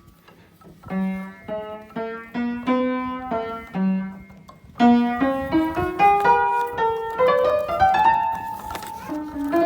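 Piano playing: separate single notes at first, then from about five seconds in a quicker run of notes climbing in pitch.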